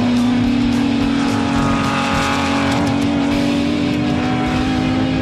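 Race car engines running hard at high revs on a circuit, one steady engine note that rises slightly near the end.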